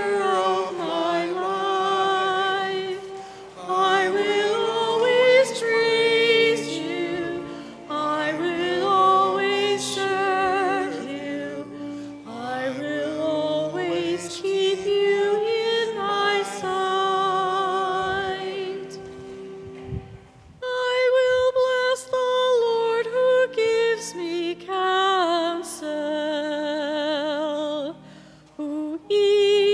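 A church hymn sung by a solo voice with vibrato over sustained accompaniment, in phrases with short breaks between them.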